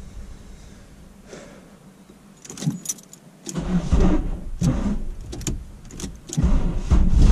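Ignition keys rattling and clicking as the key is worked. A little past halfway comes a series of short, irregular starter-cranking bursts on the turbocharged VW Golf 2 GTI 16V, a hard start. Near the end the engine catches and runs.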